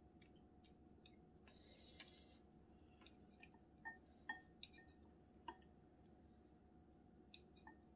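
Faint, scattered clicks and taps of wooden chopsticks against bowls while noodles are lifted and served. A few of the taps ring briefly, and the loudest come together a little past the middle. A faint steady hum lies underneath.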